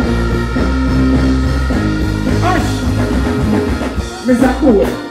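Live band playing through a festival PA: steady heavy bass and drums with guitar, and a voice on the microphone coming in over it about halfway and again near the end.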